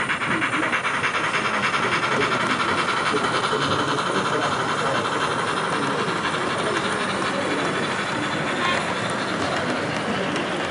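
7mm-scale model steam locomotive, a Jubilee-class 4-6-0 No. 45562, running along the track hauling coaches: a steady running sound with fast, even clicking from the wheels and mechanism.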